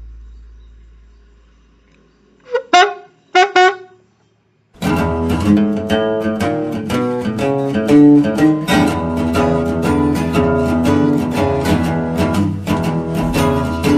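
Background music with plucked guitar that starts about five seconds in and carries on steadily. It is preceded by a fading low hum and three short, sharp pitched blips.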